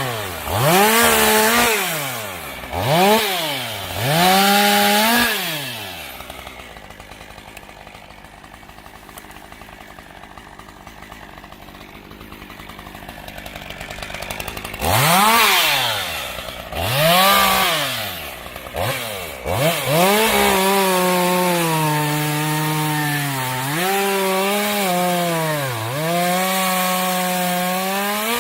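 STIHL MS 201 TC-M two-stroke top-handle chainsaw blipped to high revs several times in quick succession, then dropping back to a quieter idle for several seconds. It is revved twice more, then held at high speed for about eight seconds, its pitch sagging now and then.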